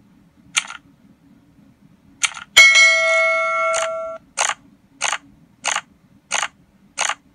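Edited intro sound effects: a couple of short clicks, then a bright metallic ding that rings for about a second and a half, followed by five short sharp hits about 0.6 s apart.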